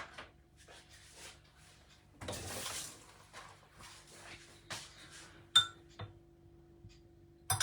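Light clinks and taps of a glass and dishes being handled, with a brief rustle about two seconds in. The sharpest clink, with a short ring, comes about five and a half seconds in.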